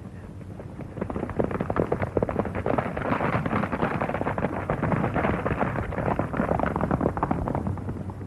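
Horses galloping: a dense patter of hoofbeats that builds about a second in and fades near the end as the riders pass.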